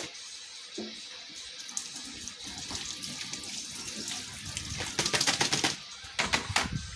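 Water running from a tap into a sink. It builds over a few seconds and runs strongest about five seconds in. A few sharp clicks or knocks come near the end.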